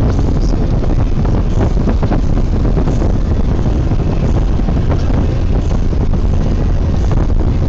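Steady low rumble of road and wind noise inside a car travelling at highway speed.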